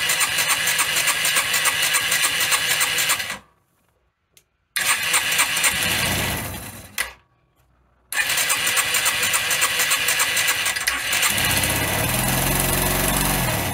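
Freshly rebuilt single-cylinder four-stroke motorcycle engine cranked on its electric starter in three bursts, with two short pauses between them: a first-start attempt after the rebuild. In the last burst, from about eleven seconds in, the engine begins to fire, then stops near the end.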